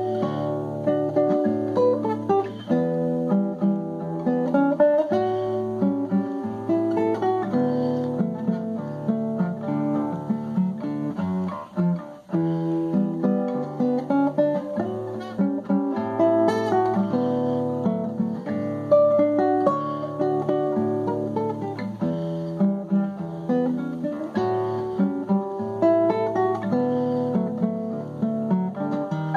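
Solo classical guitar, fingerpicked: a quick melody over a repeating bass line.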